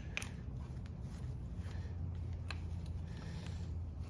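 Low steady hum with a few faint, separate clicks and a brief light rustle: small handling noises of parts being moved about.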